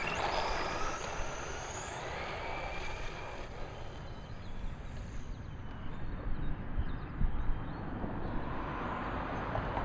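Brushless electric motor of a radio-controlled truck whining as the truck speeds off, the pitch rising over the first couple of seconds and then fading away, over a steady hiss of tires and wind.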